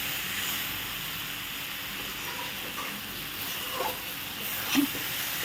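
Shredded cabbage frying in hot oil in a kadai, a steady sizzle, with a couple of faint knocks about four and five seconds in.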